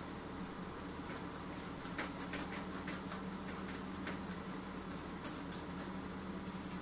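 Steady low machine hum, with a scatter of light clicks and scrapes in the middle from a long palette knife smoothing icing on a cake as it turns on a turntable.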